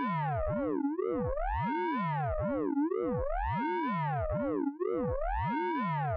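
Synthesized radar pulse-train sound effect from the Orange Vocoder plugin: a steady electronic tone made of many stacked pitches sweeping up and down together in an even, repeating cycle.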